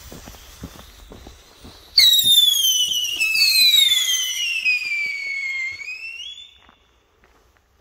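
Funke Silber Heuler (FLH-2) P1 howler firework: faint crackling from the lit charge, then about two seconds in a loud whistle starts suddenly and slides steadily down in pitch for about four seconds, bending up a little just before it stops.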